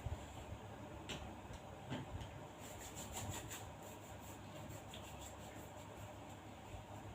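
Faint handling noises of small equipment being set out: light rubbing with scattered clicks, and a quick run of small clicks about three seconds in.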